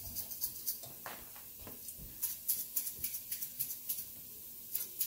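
Aromatics sizzling in vegetable oil in a pot, an irregular fast crackle, with a few soft knocks in the first few seconds.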